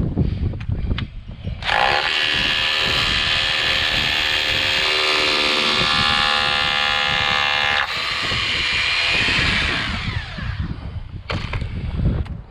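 Power drill running at a steady speed for about six seconds, then slowing and winding down over the next two seconds. Knocks and handling noise come before and after it.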